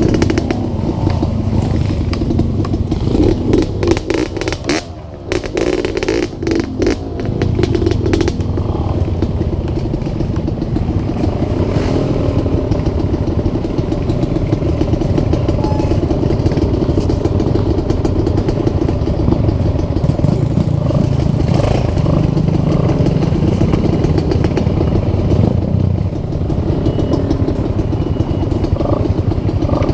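Dirt bike engines running at low speed on a rough trail, the revs rising and falling. There are scattered knocks and rattles, and the engine sound dips briefly about five seconds in.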